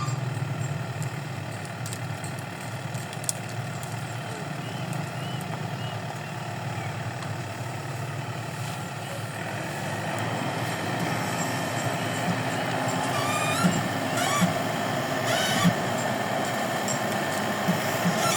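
Rice combine harvester running steadily, its noise growing louder and fuller about ten seconds in, with a few short sharp knocks near the end.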